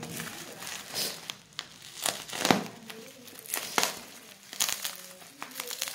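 Plastic courier packaging and bubble wrap being torn open and crumpled by hand, in irregular bursts of crinkling.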